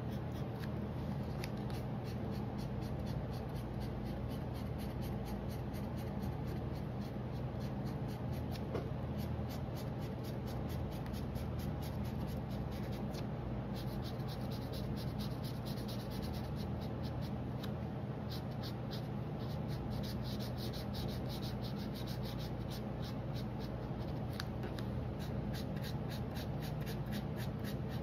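Felt-tip marker scribbling on drawing paper in quick, rapid back-and-forth strokes while colouring in a ring, with a steady low hum underneath.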